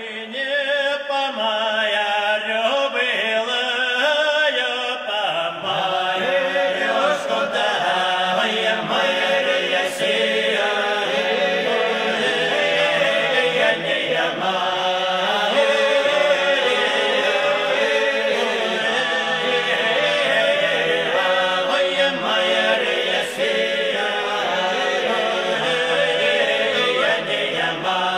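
Background music of chanting voices, like a choir, sung steadily, with lower parts coming in about five seconds in.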